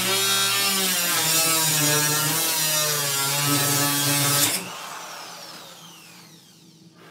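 Angle grinder cutting into the sheet-metal casing of a microwave oven, a loud grinding screech whose pitch wavers under load. About four and a half seconds in the disc comes off the metal and the grinder spins down with a falling whine.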